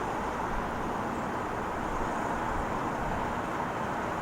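Steady airport background noise with no distinct events.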